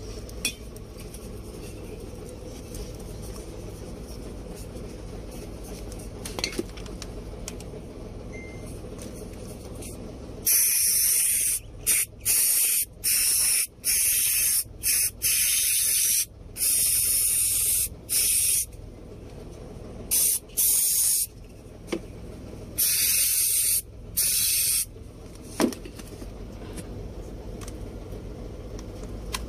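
Aerosol contact cleaner sprayed onto the AdBlue control module's connector terminals in about a dozen hissing bursts, some short and some held for a second or so. The spraying starts about a third of the way in and stops a few seconds before the end.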